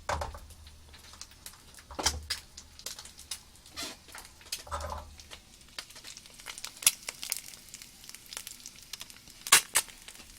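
An egg frying in oil in a small pan, sizzling with irregular pops and crackles of spattering oil, with a few soft low bumps. The heat is high enough to scorch the egg, and the cook suspects the flame is too strong.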